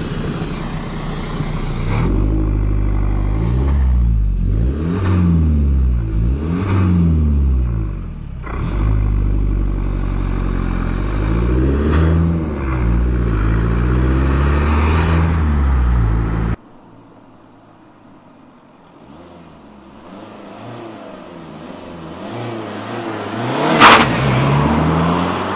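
Audi A3 2.0 TDI four-cylinder diesel through a Darkside cat-back exhaust, accelerating hard with the revs rising and falling several times. After a cut the car is heard approaching and passing close, loudest about 24 seconds in.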